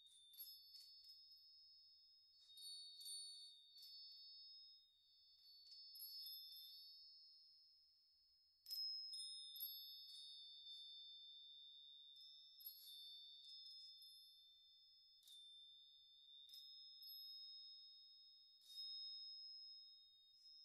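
Faint, high chimes struck at irregular moments on a few recurring notes, each note left to ring out.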